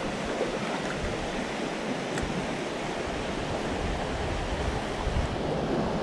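Shallow mountain stream rushing steadily over stones, with some low wind rumble on the microphone.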